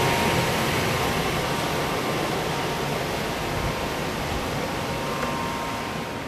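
Newly installed furnace running with its burners lit: a steady rush of air and burner noise with a faint steady whine, slowly getting quieter.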